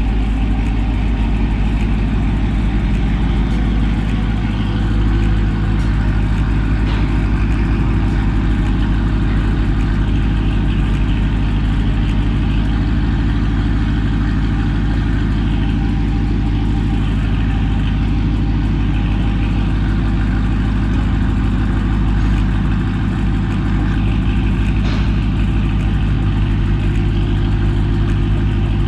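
2019 Dodge Charger R/T's 5.7-litre Hemi V8 idling steadily and loud through newly fitted 1-7/8-inch stainless long-tube headers and a catted mid-pipe.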